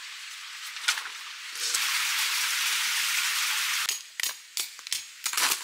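Tent pitching on crushed gravel: a steady hiss for about two seconds, then several sharp clicks and knocks close together near the end.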